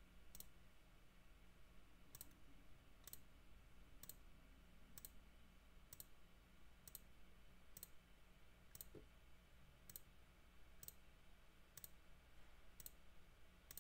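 Faint, sharp computer mouse-button clicks, evenly spaced at about one a second, over a faint steady low hum.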